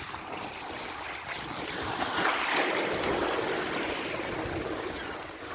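Water rushing and splashing along the hull of a sailboat under sail at about five knots, mixed with wind on the microphone; the rush swells to its loudest about two seconds in and then eases.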